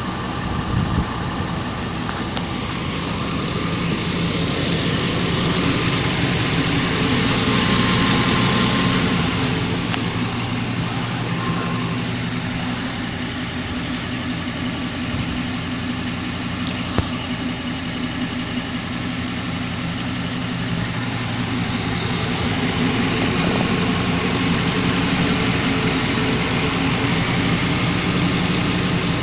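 2004 Nissan Armada's 5.6-litre V8 running at idle with a rapid knock that appeared after an engine rebuild; the cause of the knock is unknown.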